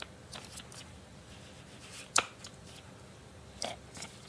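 Clear plastic cup being handled and tilted in the hands: scattered light clicks and taps, with one sharper click about two seconds in.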